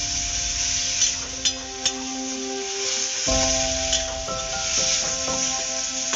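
A metal spatula stirs and scrapes thick chickpea curry in a metal kadai while the gravy sizzles, with a few sharp clicks of the spatula against the pan.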